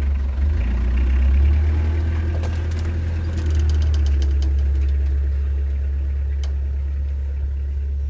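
Small pickup truck's engine running as it drives away down a dirt track, a steady low rumble with a few light clicks near the middle.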